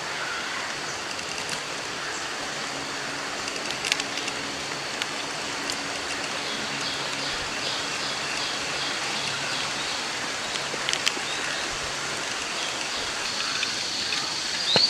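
Steady outdoor ambience: an even hiss like rain or running water, with faint high-pitched tones and a few light clicks.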